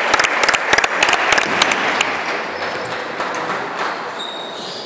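Clapping for about the first second and a half, then a table tennis rally: the ball clicking off bats and table, with a few short high shoe squeaks on the court floor near the end.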